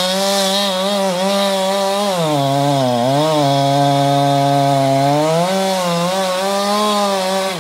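Chainsaw at full throttle cutting a notch into a large tree trunk. Its pitch drops for about three seconds in the middle, then climbs back up, and the saw drops off right at the end.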